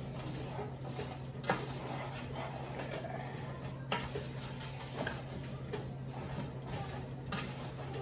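Metal spoon stirring chunks of sweet potato in a pot, with a few light clinks of the spoon against the pot, over a steady low hum.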